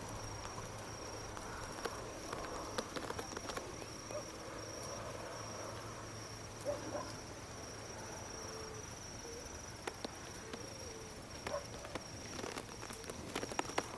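Crickets trilling steadily at a high pitch, with scattered soft clicks of a walking horse's hooves and tack.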